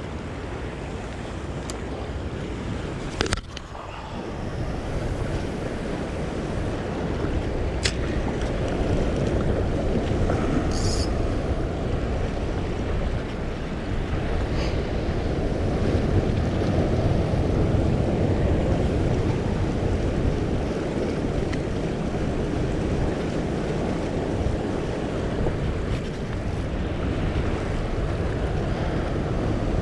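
Ocean swell washing against a rock ledge, with wind buffeting the microphone. A few short sharp clicks stand out over it, the loudest about three seconds in.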